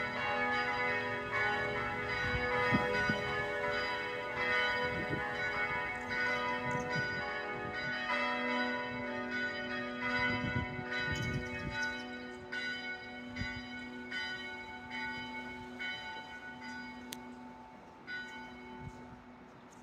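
Church bells ringing, many strikes overlapping into one continuous peal. The strikes thin out and the ringing fades away over the last several seconds.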